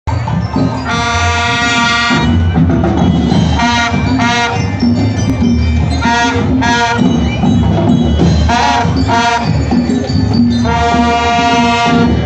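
Street marching band playing a march: drums beat steadily underneath while brass sound long held notes about a second in and again near the end, with shorter phrases in between.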